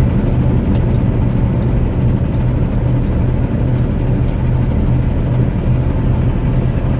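Steady drone of a loaded semi truck's diesel engine under way, with road and wind noise.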